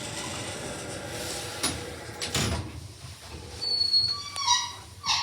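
Lift doors and car running with a steady hum, then clicks and a thud. Near the end come a high electronic beep and a short ringing tone from the lift.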